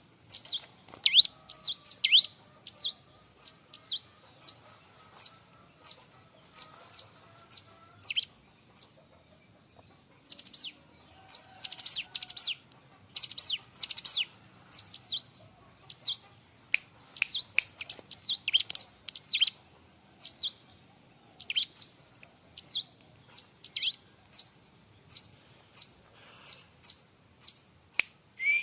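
Bar-winged prinia (ciblek) calling: a long series of sharp, high chirps that sweep downward, about two a second. Around the middle it breaks into denser, harsher chattering calls.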